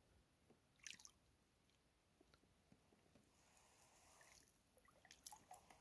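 Mostly near silence, with faint water splashes from a hooked bass at the surface beside the boat, one about a second in. A few small clicks and knocks come near the end.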